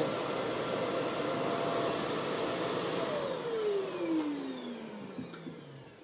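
Hoover WindTunnel Air Lift upright vacuum cleaner running on carpet. About halfway through it is switched off and the motor winds down, a falling whine that fades over the next few seconds.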